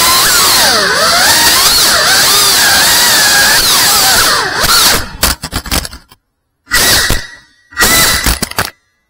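FPV quadcopter's small electric motors whining loudly, the pitch swooping up and down as the throttle changes. After about five seconds the sound breaks into short bursts with abrupt cut-outs to silence in between.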